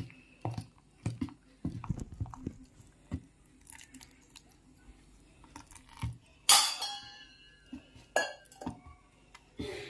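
Steel spoon stirring watery semolina (rava) and flour batter in a plastic bowl: irregular knocks and clacks of the spoon against the bowl, with one louder metal clink that rings on briefly about six and a half seconds in.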